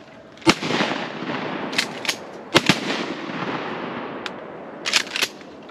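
Shotguns firing at a passing duck: one loud blast about half a second in, two more in quick succession about two and a half seconds in, and lighter shots near the end, each followed by a long rolling echo.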